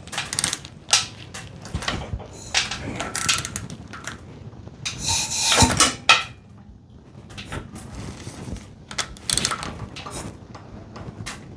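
Metal clinks and clicks of a 14 mm socket and wrench worked on the camshaft bolt, turning the engine by hand toward top dead center. There is a brief rushing scrape about halfway through.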